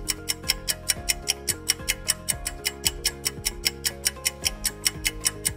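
Quiz countdown-timer sound effect: fast, even clock-like ticking, about five ticks a second, over a soft backing tune.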